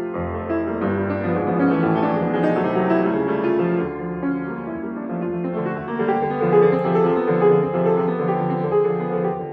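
Grand piano being played, many notes at once over a moving bass line; a deep bass note sounds just after the start and rings for about a second.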